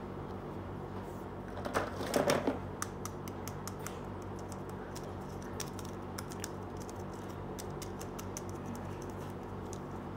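Small hard plastic toy pieces of a doll-sized swing being handled by hand. A rustle about two seconds in is followed by a run of light, sharp clicks and taps, over a low steady hum.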